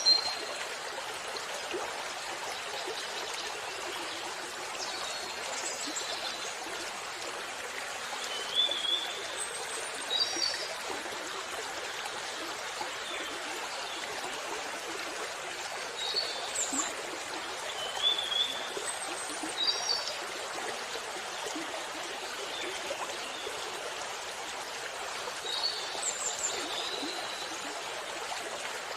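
Waterfall water rushing steadily, with short high bird chirps coming every few seconds.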